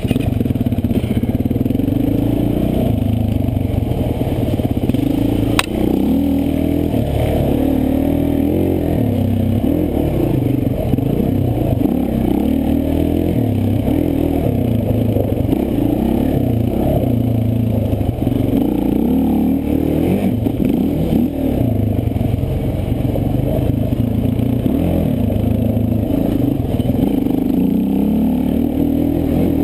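Quad's engine revving up and down under constant throttle changes, heard from on board as it is ridden over a rough dirt track, with rattling and clatter from the bodywork and one sharp knock about six seconds in.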